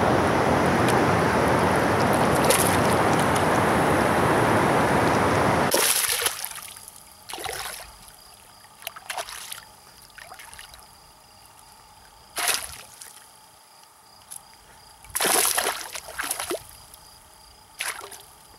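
A loud, steady rushing noise that cuts off abruptly about six seconds in. After it, a small hooked black bass splashes at the water's surface on the line in several short bursts.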